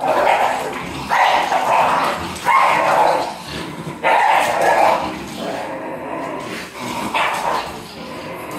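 Miniature schnauzer and French bulldog growling in play during tug-of-war, in about five bursts of under a second each, the longest about a second long a little past halfway.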